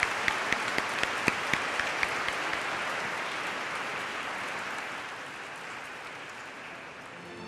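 Congregation applauding, with one clapper close by whose sharp claps stand out at about four a second for the first two or three seconds. The applause then slowly dies away.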